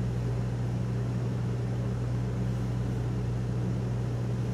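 Steady low hum of room background noise, even and unchanging, with no clicks or knocks.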